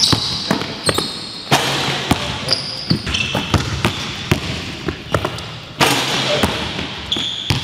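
A basketball bouncing on a hardwood gym floor in an uneven rhythm, with short high squeaks from sneakers cutting on the boards.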